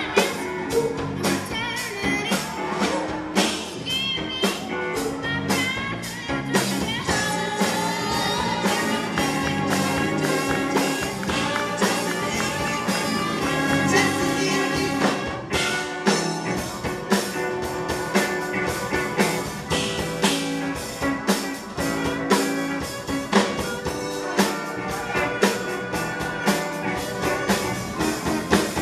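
Live youth band playing, with a group of voices singing over saxophones and trumpets and a steady beat.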